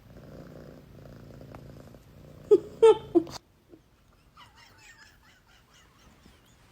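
Domestic cat: three short, quick calls about two and a half seconds in, over a faint steady low sound.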